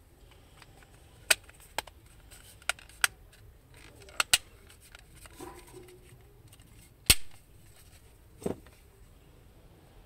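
Hard plastic clicks from a TV remote control's shell as its cover and halves are fitted and pressed together: a series of sharp clicks, the loudest about seven seconds in, and a duller knock near the end.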